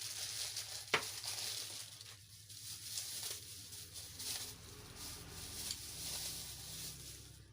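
Plastic packaging crinkling and rustling in uneven waves as a small package is worked open by hand, with one sharp click about a second in.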